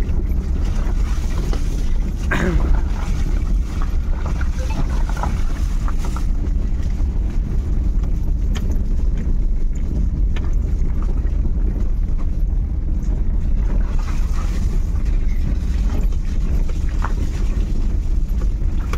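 Moving car's road and engine noise, a steady low rumble heard from inside the car. A brief pitched sound about two seconds in.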